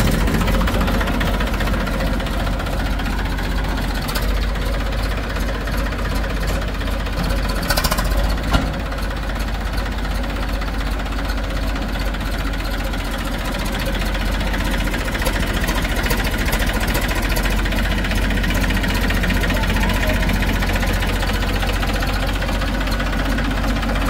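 Eicher 380 tractor's diesel engine idling steadily, with a few brief clicks about four and eight seconds in.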